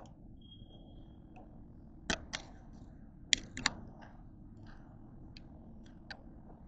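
Footsteps on a hard tiled floor: a few sharp, irregularly spaced clicks and knocks, the loudest about two seconds and three and a half seconds in, over a low steady background hum.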